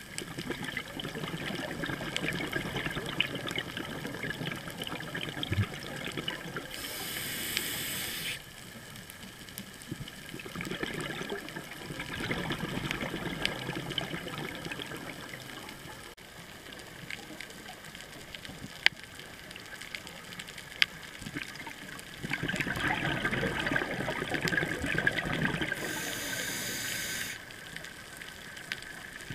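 Scuba diver breathing underwater through a regulator: three long bursts of exhaust bubbles, with a short hiss after the first and the last.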